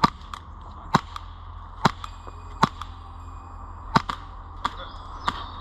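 Airsoft gun fired in single shots: about seven sharp cracks at uneven intervals, roughly one a second.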